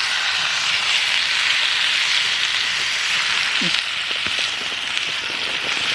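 Meat sizzling on a grill over an open wood fire: a loud, steady hiss of searing that cuts in suddenly at the start.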